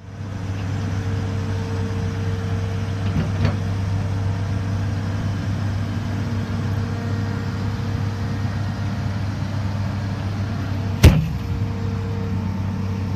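Excavator diesel engine idling with a steady low drone. A single sharp knock about eleven seconds in is the loudest sound.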